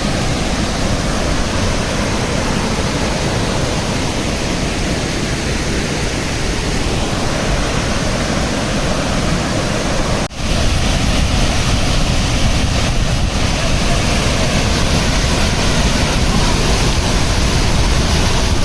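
Waterfall water pouring down, a loud steady rushing noise. It cuts out for an instant about ten seconds in, then carries on with a heavier low rumble.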